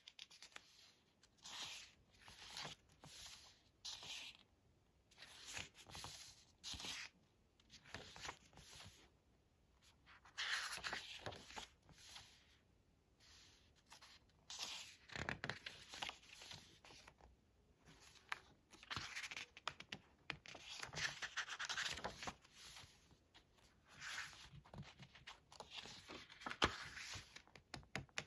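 Thick pages of a hardcover photobook being turned and handled: a run of short, irregular papery rustles and swishes, with no speech.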